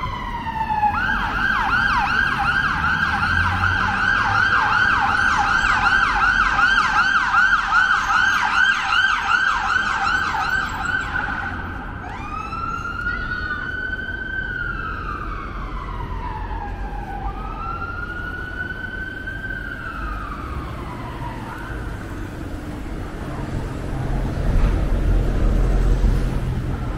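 Emergency vehicle siren on a street: a slow falling wail switches about a second in to a fast yelp of about three sweeps a second, then from about halfway goes back to two slow rising-and-falling wails and fades. A low vehicle rumble swells near the end.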